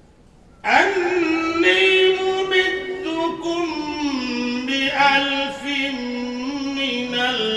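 A man's voice reciting the Quran in the melodic qirat style, with long, ornamented held notes that slowly step down in pitch. It sets in after a brief pause, a little under a second in.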